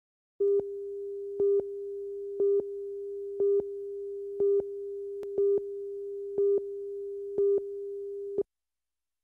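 Slate tone on a broadcast commercial tape: a steady electronic tone with a higher, louder short beep once a second, eight beeps in all. It cuts off suddenly about eight seconds in.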